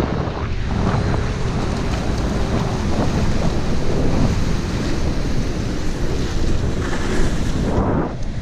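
Wind buffeting the microphone, over surf washing against the jetty wall below.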